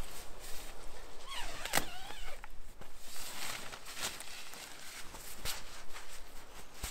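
Rustling and handling of a 3F UL Lanshan 1 Pro ultralight tent being pitched, with a few sharp clicks and footsteps on pine-needle ground. A short wavering call cuts in about a second and a half in.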